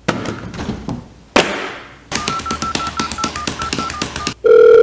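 Toy telephone being pawed by a cat: rapid clicking, about nine a second, under a broken beeping tone, then a loud steady electronic beep near the end. Two sharp knocks come in the first couple of seconds.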